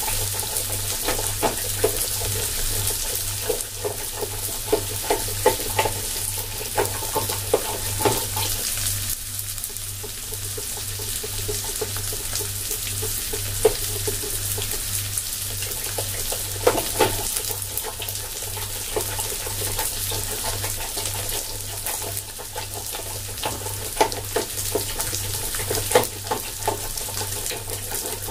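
Onions sizzling steadily as they fry in oil in a pot, with a spoon clicking now and then against a steel bowl as besan is stirred into yogurt. A steady low hum runs underneath.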